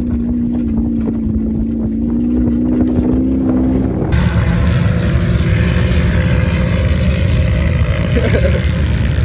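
Mid-mounted turbocharged Honda F20B engine of a CRX running at a steady speed, heard from inside the cabin while driving on sand. About four seconds in it cuts sharply to a louder, rougher rumble.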